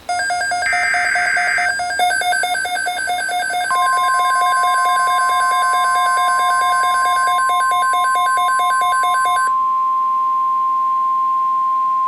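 NOAA Weather Radio alert signalling. About a second in there is a short buzzy warble of SAME data header, then from about four seconds the steady weather alert tone sounds. Under both, a rapid pulsing electronic alarm beep stops about nine and a half seconds in.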